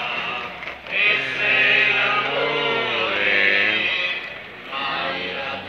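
Procession hymn sung by voices in long held notes that step up and down in pitch, with a short break between phrases about four and a half seconds in.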